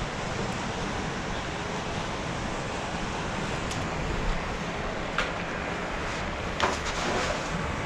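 Steady wind noise on an action camera's microphone, with a few light clicks and knocks in the second half from fishing tackle being handled.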